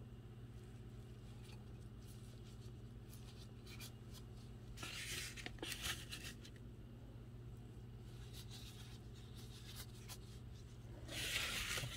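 Soft rustling and scraping in several short bursts as sliced garlic is gathered by a plastic-gloved hand off a foam tray and dropped into a pot of raw chicken feet, over a faint steady hum.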